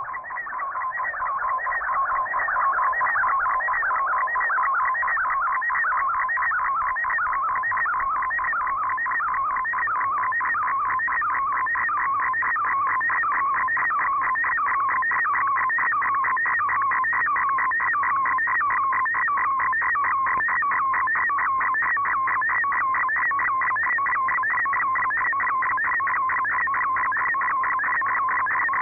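MFSK32 digital-mode signal from a shortwave broadcast, heard off the air through a software-defined radio: a dense, rapid warble of tones between about 1 and 2 kHz as a picture is being sent, with text and image carried on two audio frequencies at once. It grows louder over the first couple of seconds, then holds steady.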